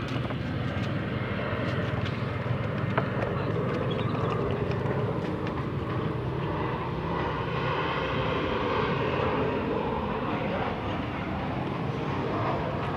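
A motor engine running with a steady drone.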